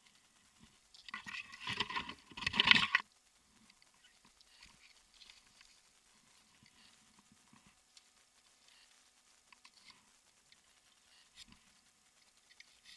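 Climbing rope and hitch gear rubbing and rustling as a tree climber pulls on the rope. A loud burst of scraping lasts about two seconds, starting about a second in, followed by only faint scattered clicks and rubs.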